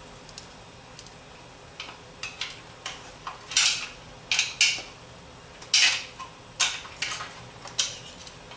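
Screwdriver and steel internal parts clinking and scraping inside a TH400 automatic transmission case. The parts are being pried and worked loose as a string of irregular sharp metallic clicks, louder and more frequent after the first couple of seconds.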